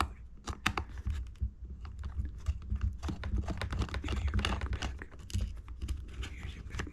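Irregular light clicks and taps, like small objects being handled, over a low rumble.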